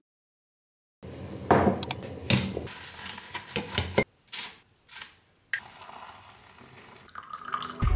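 After a second of silence, a few sharp clinks and knocks of crockery and kitchenware while a pour-over coffee is set up on a mug. From about two-thirds of the way in, a fainter steady sound of hot water being poured from a kettle into the paper filter.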